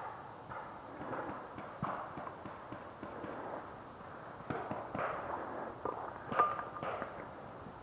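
Footsteps and gear rustling of a paintball player on the move, with a couple of sharp pops about six and a half seconds in.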